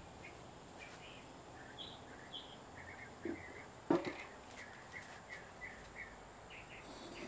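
Faint short bird chirps repeating in the background, with a small knock about three seconds in and a sharper clack about four seconds in as the metal lid of a pressure canner is turned by hand to seat it on the pot.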